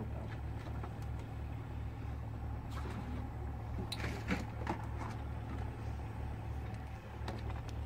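An engine running steadily at idle, a low hum that throbs about five times a second, with a few faint clicks.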